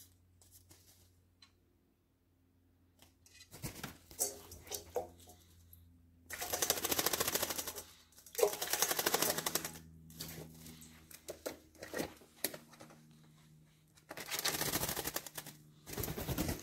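A Eurasian magpie bathing in a stainless-steel dog bowl of water: several bursts of rapid wing-beating and splashing, each lasting one to two seconds, with smaller splashes and taps between them.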